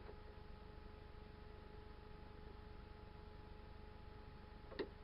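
Near silence: faint steady electrical hum of room tone, with one soft click near the end.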